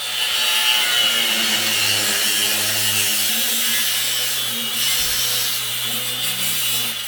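Handheld power cutting tool running steadily under load, with a high whine, as it cuts through a stuck exhaust bolt that would not come undone with wrenches.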